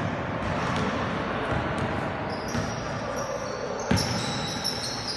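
Basketball bouncing on an indoor court floor during play, with a series of thuds and one loud bounce about four seconds in. Sneaker soles squeak in short high tones through the second half.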